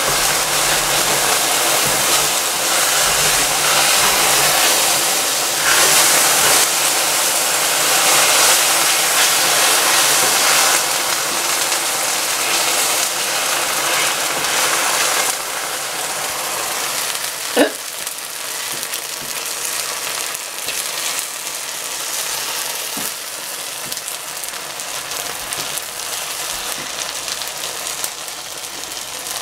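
Food sizzling in a pan on the hob, a steady crackling hiss that drops somewhat about halfway through. A single short sharp squeak or clink sounds a little later.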